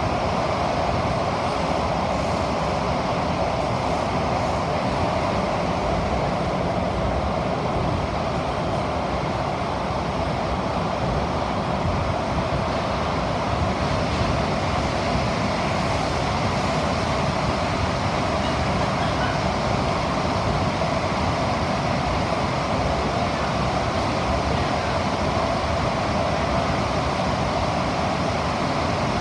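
Cabin noise of an SMRT CT251 metro train running in a tunnel: a steady rumble and rush of wheels on rail with a strong mid-pitched hum, holding an even level.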